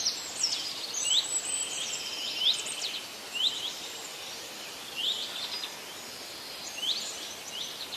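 Several small birds chirping: short rising chirps, often in quick clusters, every second or so, with a few brief trills, over a steady background hiss.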